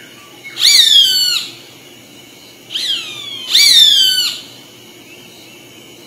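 Roadside hawk calling: three descending screams, the second one shorter.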